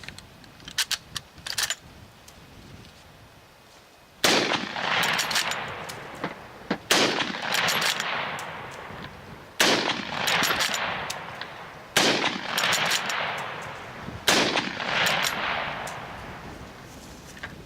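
Gewehr 98 Mauser rifle in 8x57mm fired five times, a shot about every two and a half seconds, each with a long echo that fades. A few sharp metallic clicks come before the first shot.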